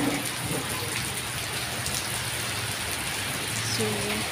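Heavy rain falling steadily onto wet, puddled pavement, an even hiss.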